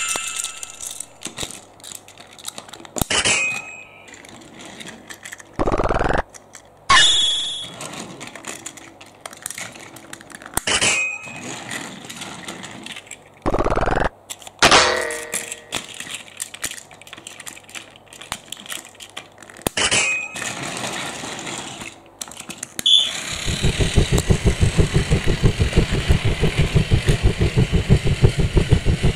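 A few bell-like dings and short clatters and knocks from a toy train set, then, near the end, a battery-powered Plarail toy train's motor starts running with a fast, even rhythmic clatter.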